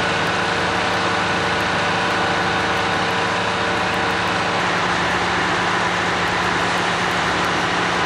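Fire engine's engine running steadily at idle, a continuous low hum.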